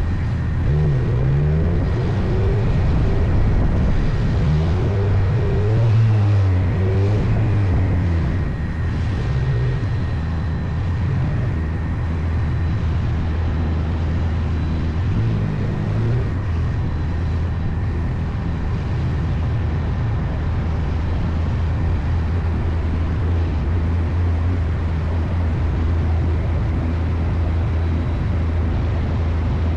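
Motorcycle engine heard from the rider's seat while riding, rising and falling in pitch for about the first ten seconds, then running at a steady pitch.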